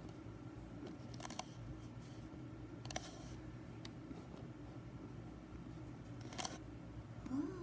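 Steady low hum of computer and server equipment fans, with a few brief clicks and a short rising-then-falling tone near the end.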